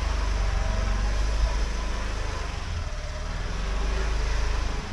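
Motorbike engine running steadily close by, a low pulsing rumble over general street noise.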